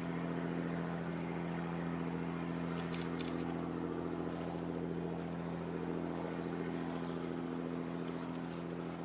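Steady low engine drone of ship's engines across the harbour, a hum made of several even tones. A few faint clicks sound about three seconds in.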